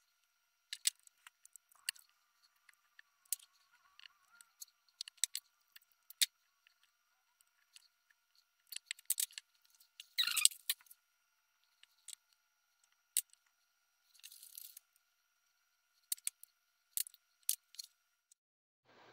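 Scattered sharp clicks, snaps and taps of plastic and metal as worn 18650 lithium-ion cells are pried out of a small air pump's battery pack and its spot-welded nickel tabs come loose, with one longer scrape about ten seconds in.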